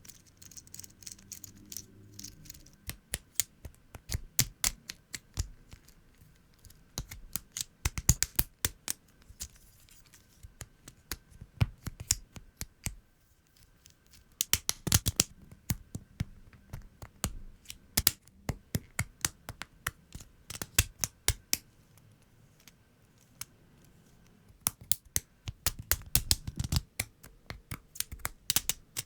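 LEGO Technic pieces being clicked and snapped together by hand, with the rattle of loose parts: a run of sharp plastic clicks that come in quick clusters between quieter gaps.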